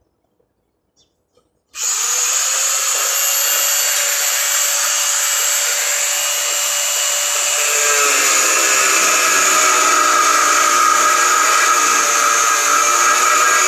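Electric angle grinder switching on about two seconds in and running steadily. About eight seconds in its motor pitch drops as the disc bears on the steel railing.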